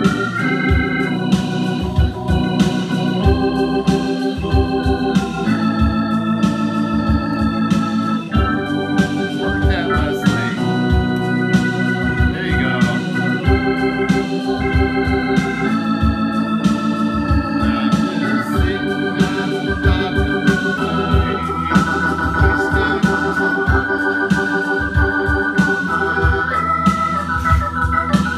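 Hammond organ played through a Leslie rotating speaker: sustained chords and runs, changing every second or two, with a warble from the spinning speaker. A steady beat of short percussive hits sounds underneath.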